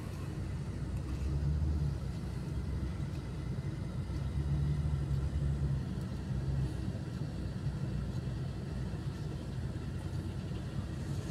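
Caterpillar 972L wheel loader's diesel engine working under load as it digs into and lifts a bucket of crushed gypsum. The low rumble swells twice, about a second in and again around four to five seconds in.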